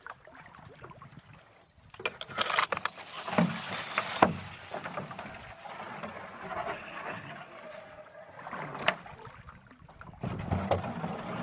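A canoe being paddled: paddle strokes in the water and a few sharp knocks and clunks, the loudest about four seconds in and another near nine seconds.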